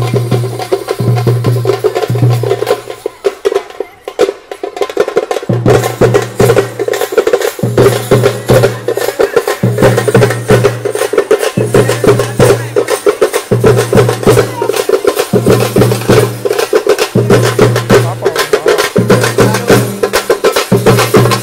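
Procession drum troupe playing a fast, loud rhythm of rapid stick strokes over a deep pulsing beat, thinning briefly about four seconds in.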